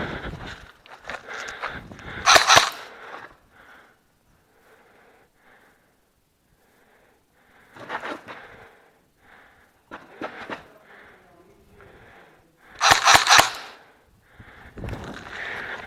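Two short bursts of rapid, sharp shots, typical of an airsoft rifle firing: one about two seconds in and a louder one near the end. Between them come quieter scattered knocks and scuffs.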